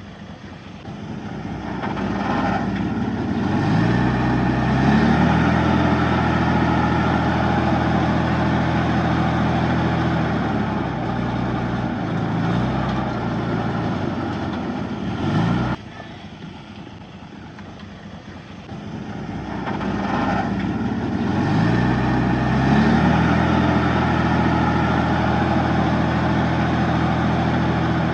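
Komatsu D31P bulldozer's diesel engine revving up from low revs and running hard under load as it pushes soil. About halfway through it drops suddenly back to a low level, then revs up again and works hard once more.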